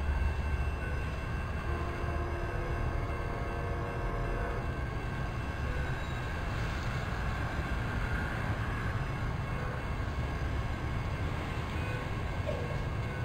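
Steady low rumble with a faint hum, and a few faint steady tones held together for about two seconds, starting about two seconds in.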